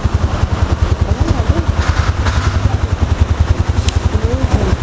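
Vehicle engine idling: a steady, low, evenly pulsing throb.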